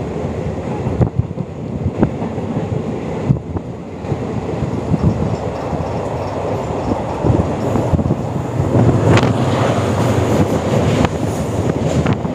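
A diesel-hauled train passing close by: a steady rumble of locomotive and wheels on the rails, with sharper clacks near the end.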